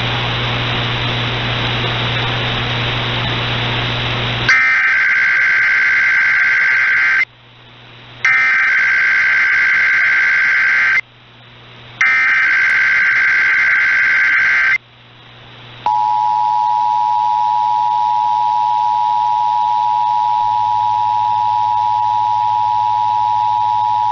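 Emergency Alert System test signalling. A steady hiss of static runs for about four seconds. Then the digital SAME header sounds as three harsh data bursts about a second apart, followed by the two-tone attention signal (853 and 960 Hz) held steady for about eight seconds.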